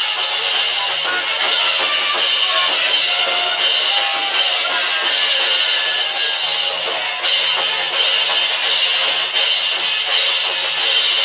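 Folk dance band music with drums playing continuously, with a brief dip and change in the sound about seven seconds in.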